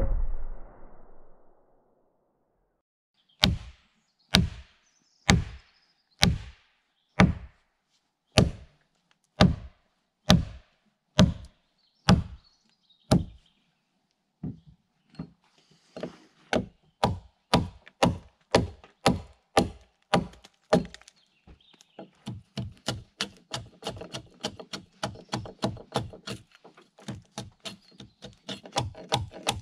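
Steel axe chopping into a pine log at a wooden peg, about one heavy blow a second. Then come quicker, lighter strikes, and near the end fast short strokes of a small hand tool cutting the wood.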